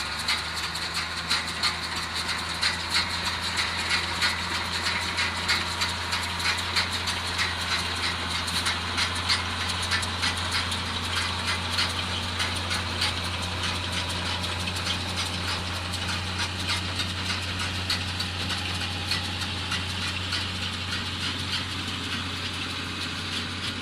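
IHC 1055 tractor's diesel engine running steadily, with a dense clattering rattle over the engine note.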